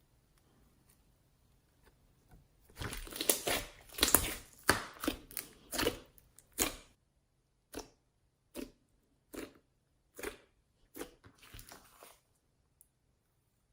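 Homemade slime being pressed and worked by hand, crackling and squishing: a dense run of crackles starting about three seconds in, then single squishes about once a second, stopping near the end.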